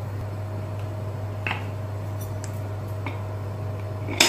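A few light clicks, then a sharp metallic click near the end as the pressure weight is set onto the vent pipe of an aluminium Prestige Deluxe pressure cooker lid, over a steady low hum.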